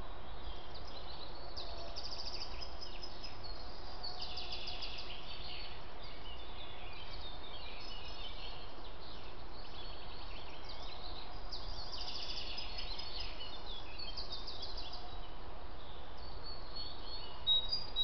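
Songbirds singing in woodland, short high trilled phrases repeated every few seconds, over the steady faint hiss of a trail camera's microphone.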